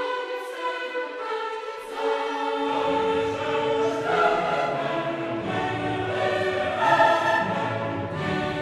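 Choral music with orchestra: sustained choir voices, with a deeper low layer coming in about two and a half seconds in.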